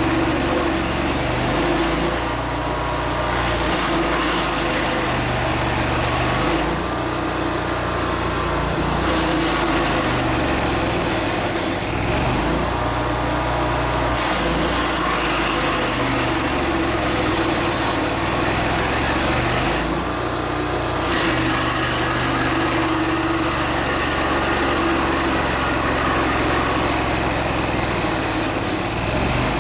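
A small engine running steadily, with its lower tones shifting every second or two.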